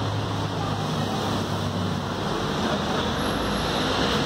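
Steady rushing noise with a low hum from shawarma kitchen equipment.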